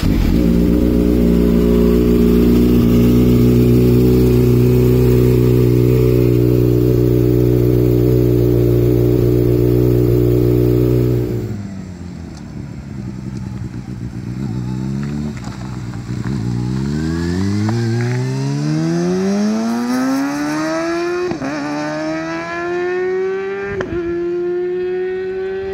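Kawasaki ZX-6R's inline-four through an Akrapovic slip-on exhaust, first running at a steady speed, then about eleven seconds in a loud full-throttle run, the note climbing steeply in pitch and dropping back at each upshift, twice near the end.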